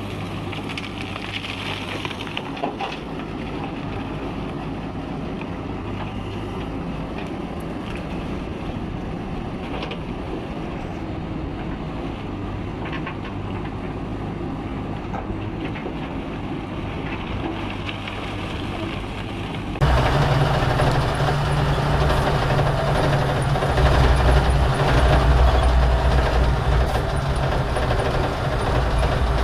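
Heavy diesel engine of construction machinery running steadily. About twenty seconds in it becomes suddenly much louder and deeper, as if working under load or heard from closer.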